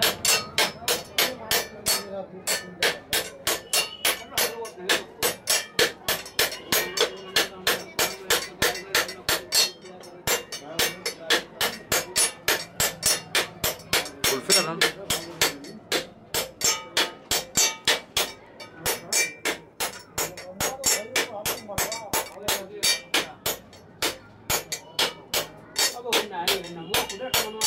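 Rapid, even clatter of a weaving loom at work, about three sharp strikes a second.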